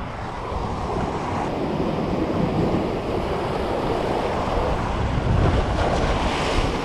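Sea surf breaking and washing over rocks, with wind buffeting the microphone. The rush swells louder a little after five seconds in as a wave surges over the rocks and throws spray.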